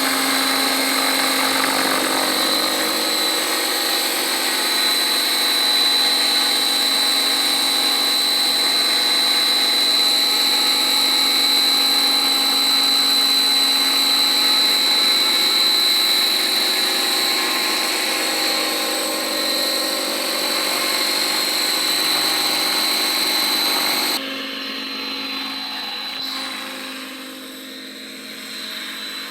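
Electric radio-controlled scale helicopter (T-Rex 600E flybar mechanics) running, a steady high whine from the motor and gears over the rotor sound. Near the end the sound drops suddenly and grows fainter.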